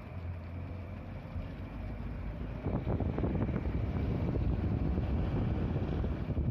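Wind rushing over the microphone and a low rumble from a moving vehicle, recorded out of its window; the wind buffeting grows louder about two and a half seconds in.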